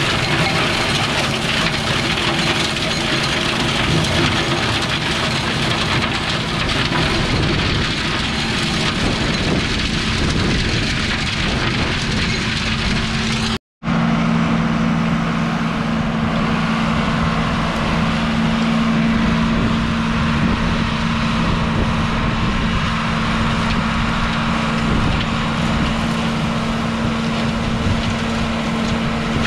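Tractor engine running steadily while its PTO-driven flail mower drum chops pruned orchard brush: a constant engine hum under a steady rushing noise. The sound drops out for an instant about halfway through.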